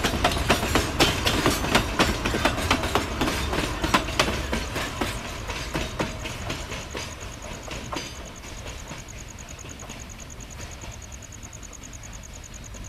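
Wheels of empty cement tank wagons clicking over the rail joints as a freight train rolls past. The clatter is loudest at first, then thins out and fades once the last wagon has gone by about six seconds in, leaving the train's sound dying away in the distance.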